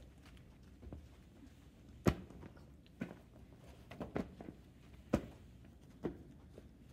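Inflatable beach ball being batted by hands: a series of sharp slaps about once a second, one of them a quick double, the loudest about two seconds in.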